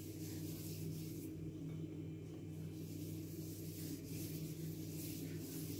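A palm rubbing starch over a folded sheet of dough in soft brushing strokes, over a steady low hum.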